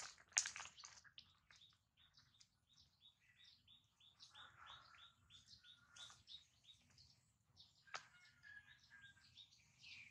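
Faint small-bird chirping: a quick, even run of short high chirps, then a few lower whistled notes. A brief rustle at the very start is the loudest sound.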